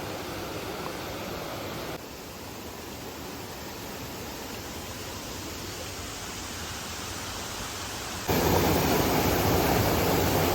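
Steady rushing of water, a continuous even hiss with no distinct events; it drops slightly about two seconds in and becomes suddenly much louder and fuller about eight seconds in.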